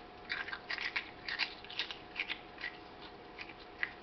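Person chewing hollow, baked Pom-Bär Oven Minis snacks: a run of short, irregular crunches that thin out toward the end.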